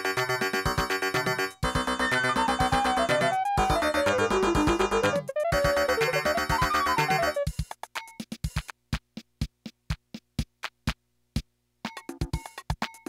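Yamaha PS-6100 home keyboard playing chords and a lead melody that slides up and down in pitch over its built-in drum-machine rhythm. About seven and a half seconds in the chords and melody stop and the rhythm plays on alone, and a short bass and chord accompaniment pattern comes back near the end.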